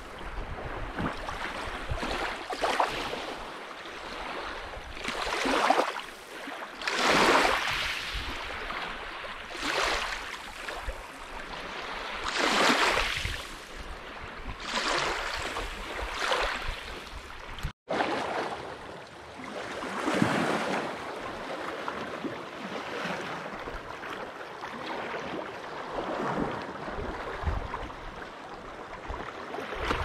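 Lake Superior waves washing onto the shore in repeated surges, one every two to three seconds, with a momentary cut in the audio a little past halfway.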